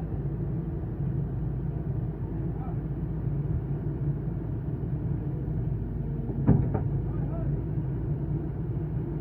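Kobelco SK220 excavator's diesel engine running steadily at work. A sharp knock comes about six and a half seconds in, with a smaller one just after.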